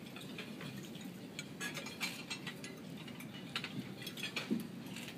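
Scattered light clinks and ticks of cutlery and dishes at the dining tables, over a low murmur of room noise.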